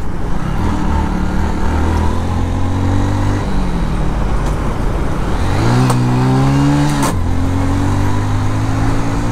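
Hero Honda Super Splendor's single-cylinder four-stroke engine running on the move with wind rush. Its pitch holds, falls for a couple of seconds, climbs again and drops sharply about seven seconds in, as at an upshift, then runs steady.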